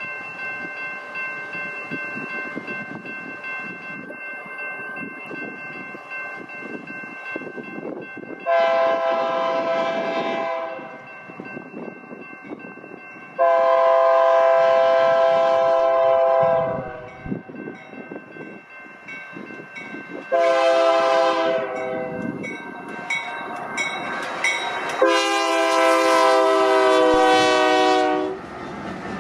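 Freight locomotive's Nathan K3HA air horn sounding the grade-crossing signal: long, long, short, long, each blast a chord of several notes, as the train approaches and passes the crossing. The crossing bell rings steadily under it, and the locomotive and train rumble grows louder as they pass.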